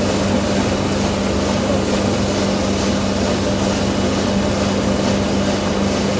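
Saygül Tarım raisin lifting and winnowing machine running steadily as it takes up dried raisins, a constant even drone over a broad rushing noise; it is working at its proper setting.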